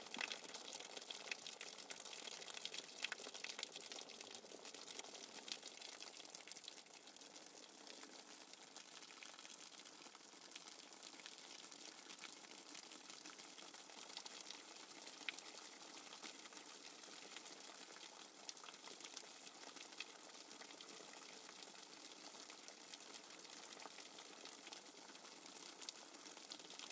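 Light rain pattering steadily on leaves and wet pavement: a fine, even hiss dotted with tiny drop ticks.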